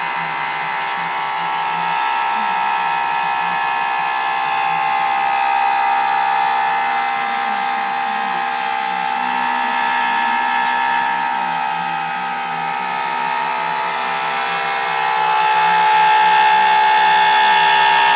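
Home-built CNC machine running, its motors giving a steady whine with several high tones. It gets louder about three-quarters of the way through.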